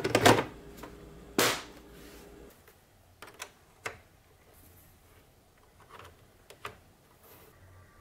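PlayStation 5 plastic side cover being slid and snapped onto the console, a few sharp clicks with the loudest snap about a second and a half in. After that a few faint clicks as a cable plug is pushed into the back of the console.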